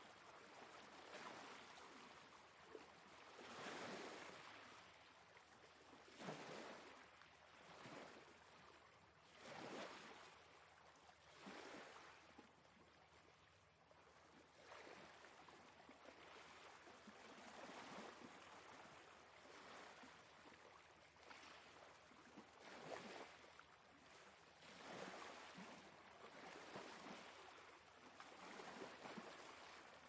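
Faint surf of small waves breaking and washing up a sandy beach: a hiss that swells and fades every two to three seconds.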